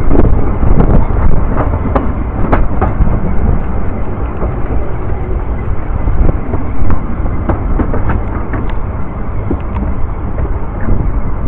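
Narrow-gauge railway carriage running along the track, a heavy steady rumble with scattered sharp clicks and knocks from wheels and running gear. Wind buffets the microphone held out of the carriage window.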